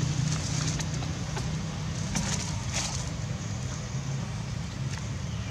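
Steady low rumble of outdoor background noise, like distant motor traffic, with a few brief crackles about one and two to three seconds in.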